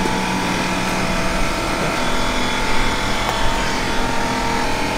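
A steady machine hum with a few thin steady tones running through it, unchanging throughout.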